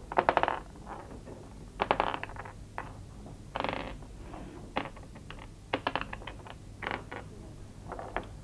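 Mahjong tiles clicking and clacking against each other on a wooden table as they are handled, in short clusters of clicks every second or so.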